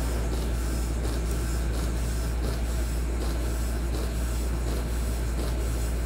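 A 5,000 BTU window air conditioner running steadily: a constant low hum with an even haze of fan noise, while it works with a fine water mist drawn over its condenser coils.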